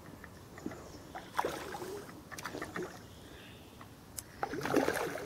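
A hooked common carp splashing and swirling at the surface of the water as it is played on the line. There are two bursts of splashing, the louder one near the end.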